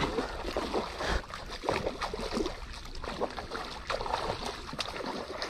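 A hooked trout thrashing at the water's surface as it is drawn to a landing net: a run of irregular splashes.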